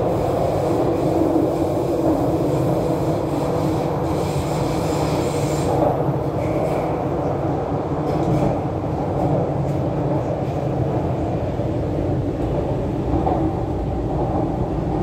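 Running noise of an MTR Q-Train metro car heard from inside the carriage: a steady rumble of wheels on track. A brief high whine rises out of it about four seconds in and lasts under two seconds.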